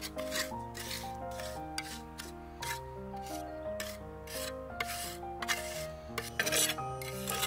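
Repeated rasping rubbing strokes, about two or three a second, loudest a little before the end, over background music.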